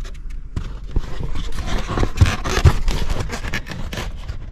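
Polystyrene crash-protection foam block scraping and creaking against the dashboard plastics as it is pushed into place, with a run of small knocks.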